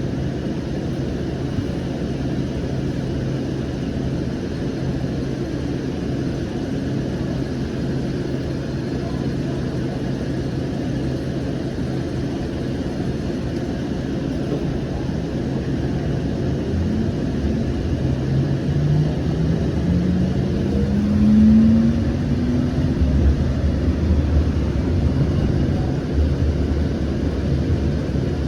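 Interior of a Siemens S700 light rail car running on the line: a steady low rumble and hum. Partway through, a whine from the electric drive rises in pitch over a few seconds as the train speeds up, and the rumble grows heavier afterwards.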